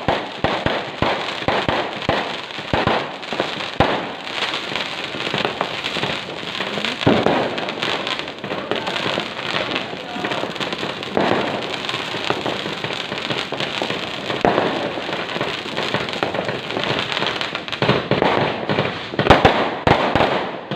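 Fireworks going off without pause: a dense crackle full of sharp bangs, with heavier bursts about seven, eleven and fourteen seconds in and a cluster of loud bangs near the end.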